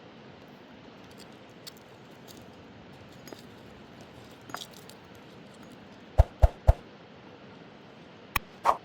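Three sharp knocks in quick succession, about a quarter second apart, then two shorter clicks near the end, over a faint steady hiss.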